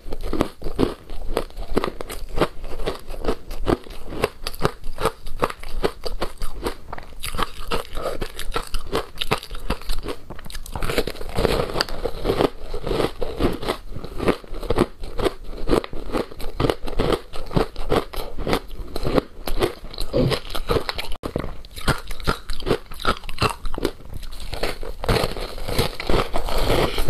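Ice frozen with passion fruit pulp being bitten off a chunk and chewed, close to the microphones: dense, continuous crunching with no pauses.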